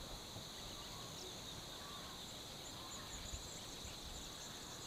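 Steady high-pitched drone of an insect chorus, with faint scattered bird chirps over it.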